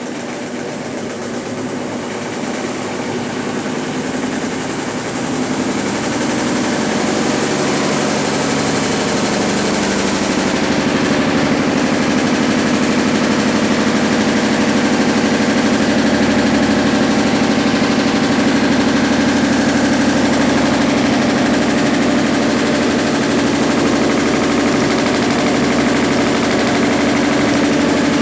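Consul Facilite 10 kg top-load washing machine running on its spin cycle: the hum builds over the first ten seconds or so as the drum speeds up, then holds steady.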